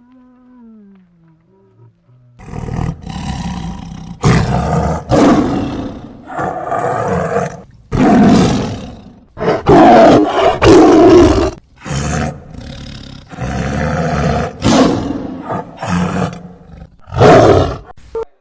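A big cat roaring in a string of loud, rough calls, starting a couple of seconds in, with the loudest roars in the middle and a last one near the end.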